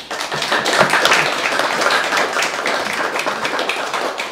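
Audience applauding, starting suddenly and slowly thinning out toward the end.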